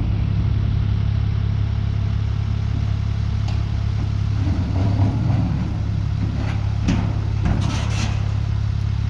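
Engine running steadily with a low, even hum, with a few clattering knocks about three and a half seconds in and again near the end.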